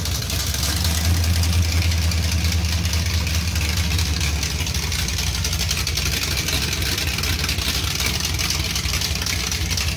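Mopar 383 big-block V8 with a tunnel ram, running on an engine stand through open headers with no mufflers, held at a little throttle by hand. Its deep low note eases about four and a half seconds in.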